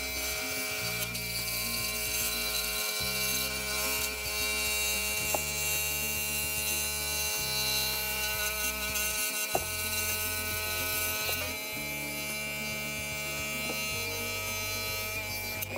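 Pegas scroll saw running steadily, its number 9 modified-geometry blade cutting through thick walnut, with two brief sharp clicks about five and ten seconds in. Background music with a low bass line plays underneath.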